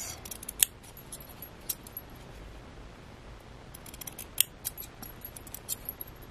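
Metal scissors snipping a notch into a striped cloth flag wrapped on a paper clip: a few sharp, separate snips and blade clicks, the loudest about four and a half seconds in.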